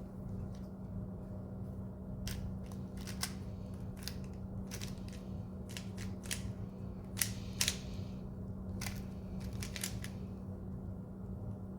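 3x3 speed cube being turned by hand: an irregular series of sharp plastic clicks as the layers snap round, mostly between about two and ten seconds in, over a steady low hum.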